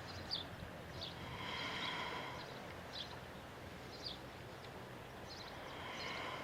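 Faint birds chirping: short, high chirps about once a second over a quiet background hiss.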